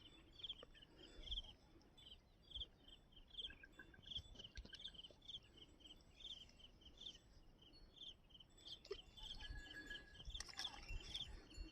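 Faint outdoor ambience with a small creature's short high chirps repeating about twice a second, and a few soft low knocks.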